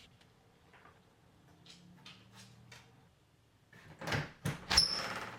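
Faint ticks, then from about four seconds in a quick run of knocks and clatter with a brief high squeak, like a plastic pet door flap being pushed and swinging shut.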